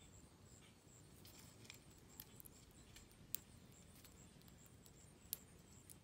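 Near silence, broken by small, sharp clicks and ticks from a male northern cardinal hopping and pecking in dry grass and leaf litter. The two sharpest clicks come about three and five seconds in.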